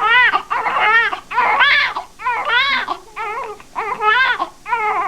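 Newborn baby crying in short wails in quick succession, each rising and falling in pitch, minutes after birth.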